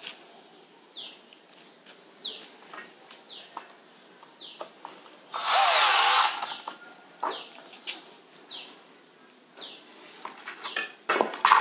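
A 24 V cordless drill-driver runs in one short burst of about a second, its pitch dipping then rising. Faint short falling chirps repeat about once a second between, and a few clicks sound near the end.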